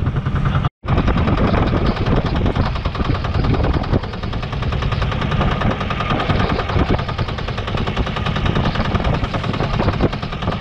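Small fishing boat's engine running hard underway, a rapid, even stream of knocking firing pulses, with a brief dropout under a second in.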